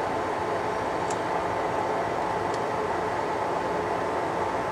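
Steady low background hum and hiss, with two faint light clicks, about a second in and again about two and a half seconds in.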